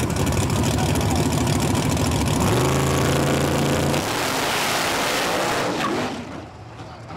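Drag race car engines running loud at the start line, then held at a steady high rev for about a second and a half. At launch, about four seconds in, they become a loud rush that fades quickly as the cars pull away down the strip.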